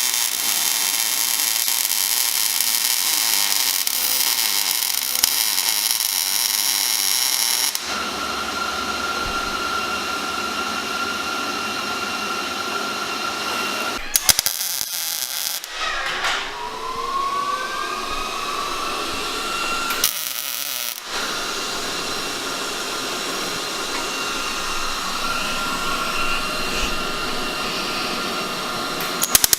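Shop power tools running in a run of abrupt cuts: a steady hiss with a high whine. About halfway through, a tool's whine glides in pitch as it spins up or down.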